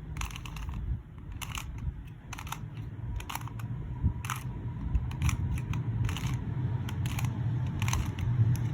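QiYi 2x2 speed cube's plastic layers being turned through an algorithm: a quick, irregular run of about fifteen short clicking turns.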